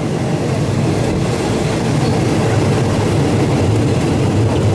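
Passenger train running, heard from inside a carriage with an open window: a steady rumble of wheels on the rails under a low drone.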